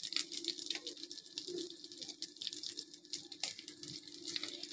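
Hot ghee sizzling and crackling in a frying pan around frying mince-and-potato kebabs, with a steady low hum underneath.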